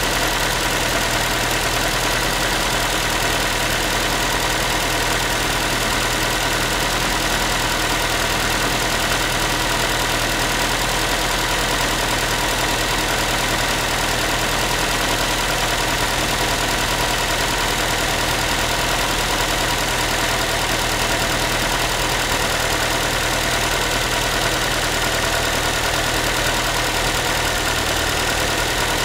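Ford Focus 3's 1.6-litre 125 hp four-cylinder engine idling steadily, with a mechanical knocking noise, a tinny, pan-like rattle that the owner hears after a cold start and cannot identify.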